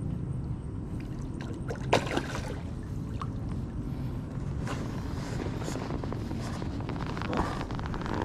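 Hooked jelawat (sultan fish) thrashing at the water's surface as a landing net is pushed at it, giving several short, sharp splashes. A steady low rumble runs underneath.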